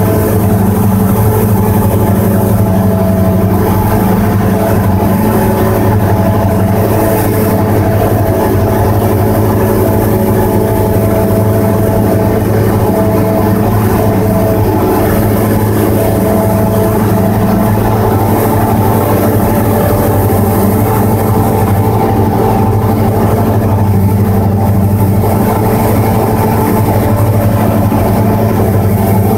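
Cessna 172's piston engine and propeller droning steadily, heard inside the cabin on approach, with little change in pitch.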